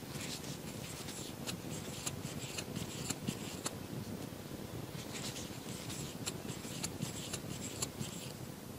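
Crochet hook working wool yarn: two runs of small scratchy clicks and rustles as loops are drawn through, the second starting about five seconds in.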